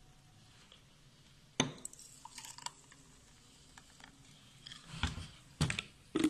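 Thick milkshake poured from a blender jug into glass tumblers, with several sharp knocks and clinks of jug and glass. The loudest come about a second and a half in and near the end.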